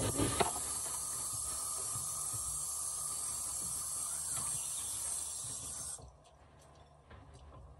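A steady hiss that cuts off suddenly about six seconds in, followed by a few faint clicks.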